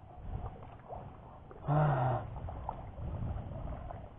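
Rice plants rustling and water sloshing underfoot as someone wades through a flooded rice paddy. About two seconds in, a short low vocal sound, a grunt or brief call, is the loudest thing.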